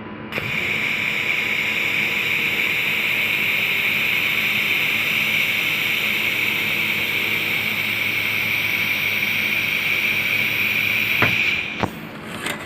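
Handheld fiber laser welding machine firing a continuous weld: a steady, loud hiss with a high tone that starts suddenly just after the start and cuts off with a click about 11 seconds in.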